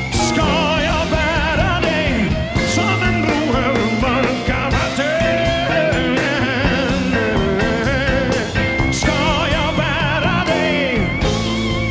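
Live rock band playing a slow ballad, with singing and several long, wavering held notes over guitar, bass and drums.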